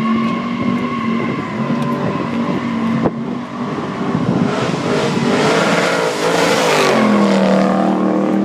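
Chevrolet Malibu engine held at high revs while its tyres squeal as the car slides. The tyre noise builds about halfway through and is loudest shortly before the end, with the engine note wavering under it, then settling to a steadier lower tone.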